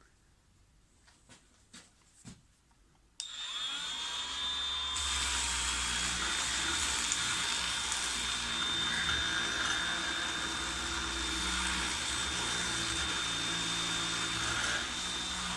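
Ozito 18V cordless random orbital sander switched on about three seconds in, after a few light clicks, running on its lowest speed with a steady high whine. About two seconds later a fuller, steady sanding hiss joins it as the 40-grit pad works the wood.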